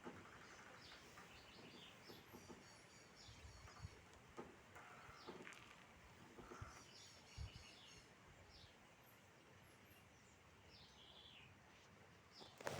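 Faint bird chirps and short trills repeating over a quiet outdoor background, with a few sharp knocks right at the end.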